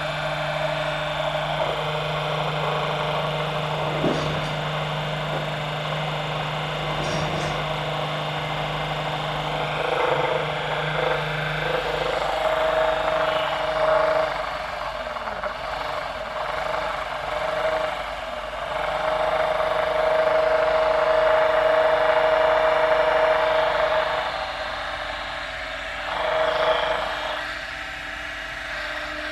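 Homemade DC motor built from screws, running on a 12 V battery: a steady hum and whine that strengthens and fades in stretches, loudest for several seconds past the middle.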